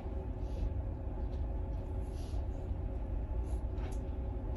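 Room tone: a steady low rumble, with a few faint brief rustles.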